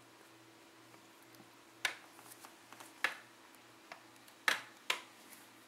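Kittens moving about in a cardboard box, making a handful of sharp taps and clicks, about five spread from two seconds in to the end, over a faint steady hum.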